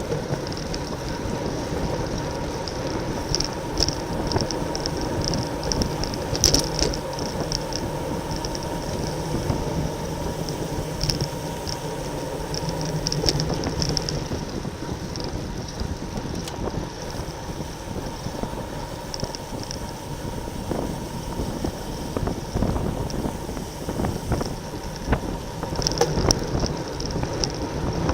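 Wind rushing over a bike-mounted camera's microphone with road and tyre noise while riding in a racing pack. Spells of high, rapid ticking come and go several times.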